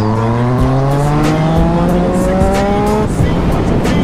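Yamaha MT-09's three-cylinder engine pulling under acceleration, its pitch rising steadily and then dropping about three seconds in at an upshift, over wind rush.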